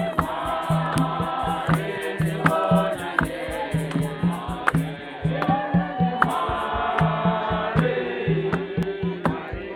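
A crowd of mourners singing a funeral song together in many voices, over a steady repeating beat with sharp strokes throughout.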